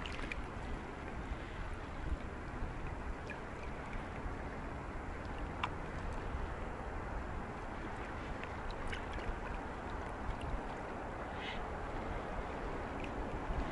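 Shallow sea water lapping around a wading angler's legs, a steady wash of small waves with a few faint light ticks.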